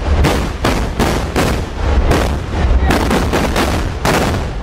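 Rows of carbide cannons (meriam karbit), big drum-and-pipe barrels lit with torches, firing one after another: about a dozen deep booms in under five seconds, some overlapping.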